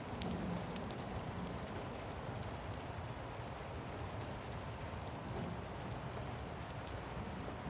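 Steady rain falling, with scattered sharp drop ticks and a low rumble underneath.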